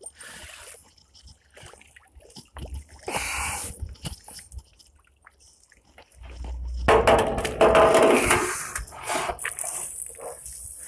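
Water sloshing and dripping from a homemade well bailer as it is hauled up on a rope out of the river. There is a short splash about three seconds in and a louder, longer spill from about six seconds to nine.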